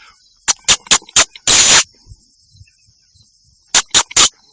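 Hunting rifle misfiring instead of firing properly: a quick run of sharp clicks, a short, very loud burst of noise about a second and a half in, then three more sharp clicks near the end. A 'terrible sound' rather than a clean shot.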